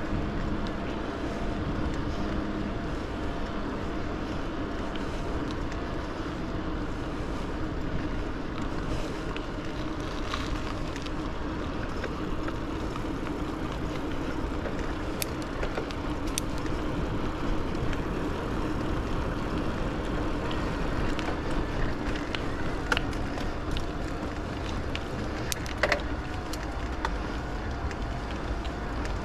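Electric bike rolling steadily on an asphalt path, with wind on the microphone, tyre noise and a steady low hum. A few sharp clicks and rattles from bumps come through, the loudest near the end.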